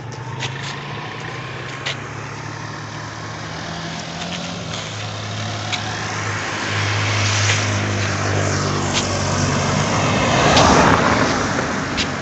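A motor vehicle's engine running with a steady low hum, the sound swelling to its loudest about ten seconds in and then easing off, as if the vehicle comes close; a few light clicks are scattered through it.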